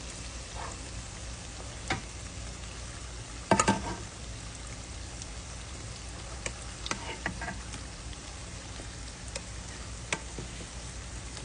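Food frying in hot oil: a steady sizzle, broken by sharp clicks and knocks, the loudest a quick cluster about three and a half seconds in.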